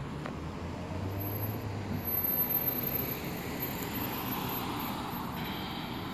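Road traffic going by: a steady rush of passing cars that swells a little about two seconds in.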